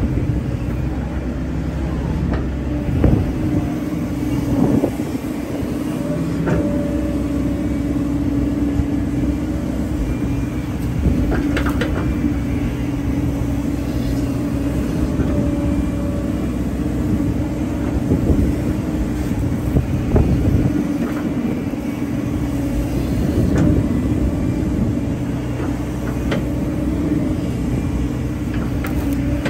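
Hyundai hydraulic excavator's diesel engine running steadily while the machine works, with a few short knocks and clanks now and then.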